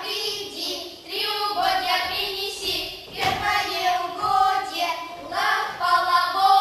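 Several young girls singing a song together at stage microphones, in held notes, with a short break about halfway through.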